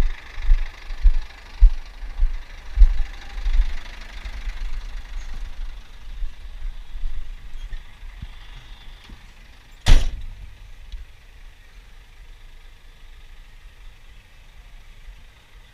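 Scania truck's diesel engine running, with irregular low thumps over the first few seconds. A single loud bang comes about ten seconds in.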